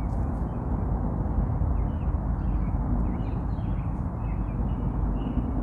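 Birds chirping faintly and intermittently over a steady low rumble.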